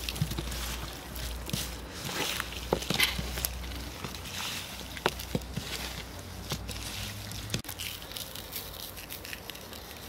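Raw turkey pieces being handled and turned over by hand while salted: wet squelching of meat, with irregular soft slaps and clicks as pieces drop onto the covered table.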